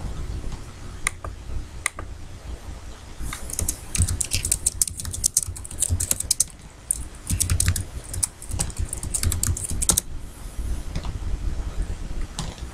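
Typing on a computer keyboard: a couple of single key clicks about a second apart, then a quick run of keystrokes from about three seconds in that stops near the end.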